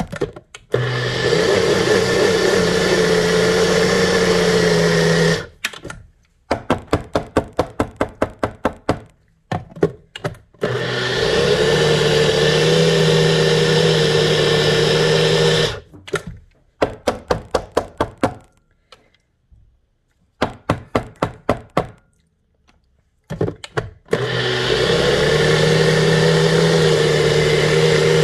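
NutriBullet blender grinding a thick nut and chocolate paste into a spread, its motor straining on the dense mixture. It runs in long stretches of several seconds, broken by quick runs of short bursts at about four a second.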